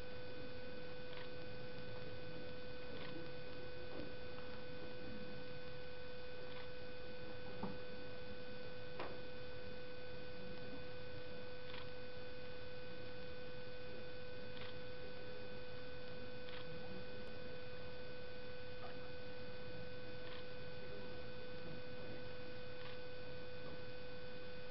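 Steady electrical hum with a high, thin tone near 500 Hz and fainter higher tones above it, with faint, irregular clicks every second or two.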